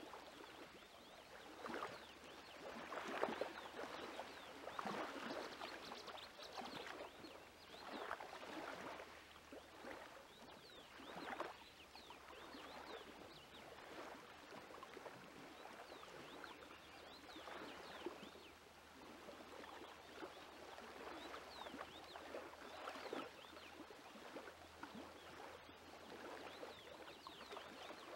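Hands kneading sticky bread dough in a metal bowl: soft, wet squelching and crackling in uneven strokes every second or two.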